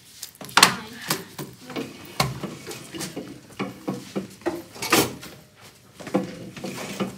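Irregular knocks and clatter of students moving about a classroom, bumping chairs and handling bags, with the loudest knocks about half a second in and about five seconds in, and a little talk.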